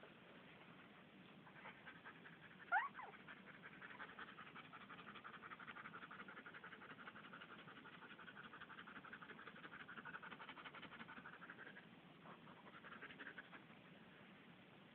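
Ten-day-old Alaskan malamute puppies squeaking: a short, sharp rising squeal about three seconds in, then a long, faint, rapidly pulsing whine that runs for several seconds and stops near the end.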